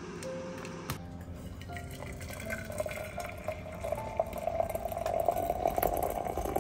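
Water poured into a glass teapot over dried herb leaves and flowers, starting about a second and a half in. The sound grows louder and its pitch rises slowly as the pot fills.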